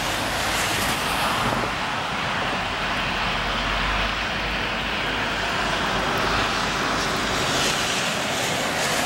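Diesel locomotives of a work train running in the distance as it approaches: a steady, even drone.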